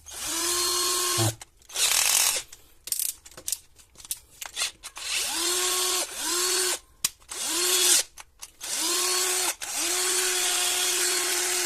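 Cheap cordless drill, converted to run from a plug-in 12-volt charger, run in repeated trigger pulls as a test of the mains conversion. Each time the motor whines up to speed, runs for a moment to about a second, and winds down, about eight times over, with short clicks in between.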